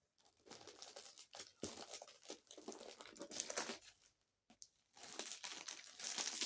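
Parcel wrapping being handled and pulled open: irregular crinkling and rustling, with a brief pause a little past the middle and louder rustling near the end.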